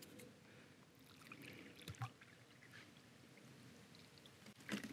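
Faint sound of water poured from a plastic bottle into a collapsible silicone bowl, with a soft knock about two seconds in and a little handling noise near the end.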